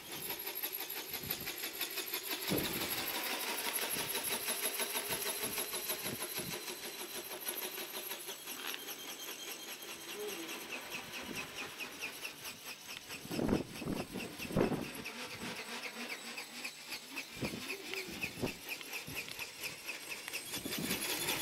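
Flapping-wing RC ornithopter's brushless outrunner motor and wing drive buzzing, its pitch slowly rising and falling as the throttle changes. About two-thirds of the way through, two louder gusts of wind hit the microphone.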